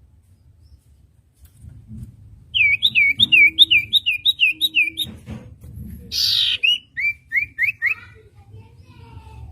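Common iora (cipoh) singing, starting a couple of seconds in: a quick run of about eight short, falling whistled notes, then one harsh rasping note and four lower slurred whistles.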